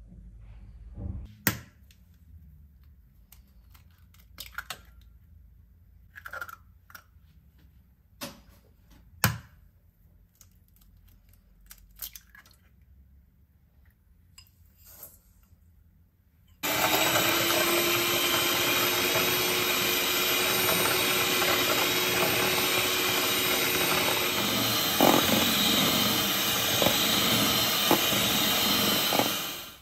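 Handheld electric mixer with twin beaters starting up about halfway through and running steadily at high speed, whisking eggs and sugar in a stainless steel bowl. Before it, a series of light knocks and clicks.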